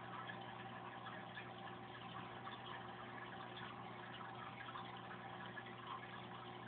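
Aquarium pump humming steadily, with water bubbling and trickling where a stream of bubbles breaks the surface.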